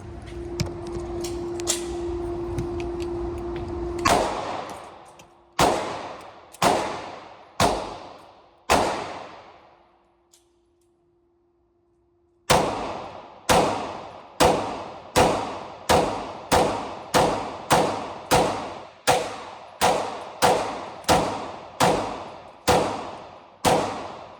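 Canik pistol fired in two strings of slow aimed shots: five shots about a second apart, a short pause, then about sixteen more at a quicker, even pace, each crack trailing off in an echo. A steady hum with a rushing noise runs for the first few seconds, before the first shot.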